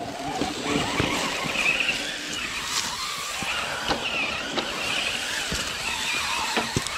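Electric motors and gearboxes of two RC rock crawlers whining, the pitch rising and falling with the throttle as they climb over rock, with scattered clicks and knocks from tyres and chassis striking stone.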